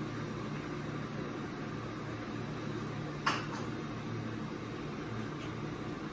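Steady low hum of room noise, with one short, sharp click about three seconds in.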